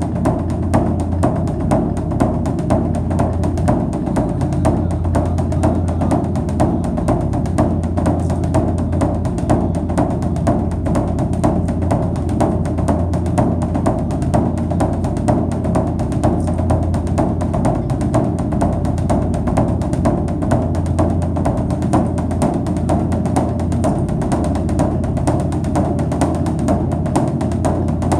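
Background music driven by drums and low percussion, with a steady beat.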